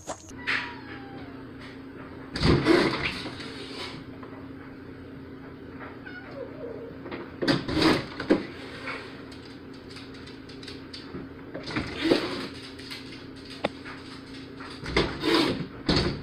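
A cat jumping up at a door: loud short bursts of cat calls and door knocks come about every four seconds over a steady low hum.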